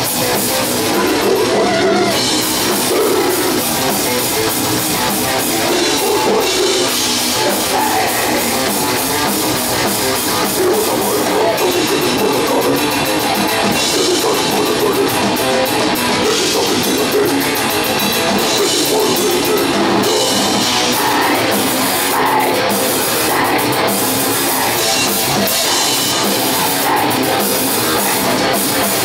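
Death metal band playing live: distorted electric guitars, bass and fast drumming on a full drum kit, in a loud, dense, unbroken wall of sound.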